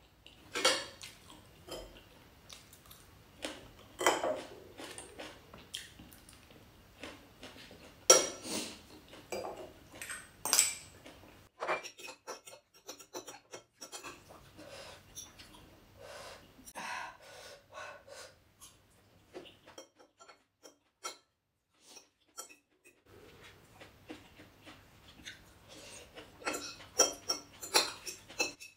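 Metal spoon and fork clinking and scraping against a ceramic bowl as noodles are stirred and scooped, in irregular sharp clicks with a short quiet pause past the middle.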